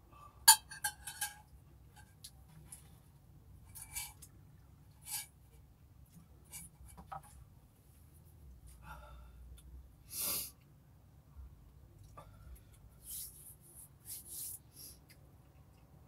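A spoon clinks against a metal cooking pot several times in quick succession about half a second in, with a short metallic ring. Scattered soft mouth, chewing and breathing sounds follow, including a few short hissy breaths or sniffs.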